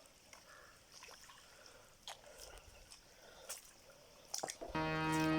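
Faint trickling and dripping of water with a few small scattered clicks. A background music track with sustained tones fades in near the end.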